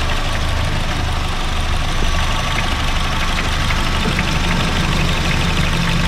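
Honda Fit GD3's 1.5-litre four-cylinder engine idling steadily with the air-conditioning compressor running, under a fast light ticking. The compressor gives a slight rumble, which the owner takes for a worn compressor rather than an overcharge of refrigerant.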